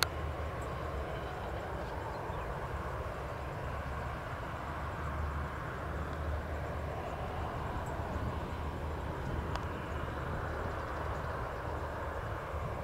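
Jet airliner engines running at a distance, a steady, even rumble with no change in pitch.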